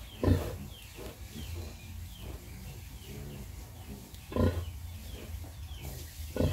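A nursing sow grunting: three short, deep grunts a few seconds apart, with faint high squeaks between them.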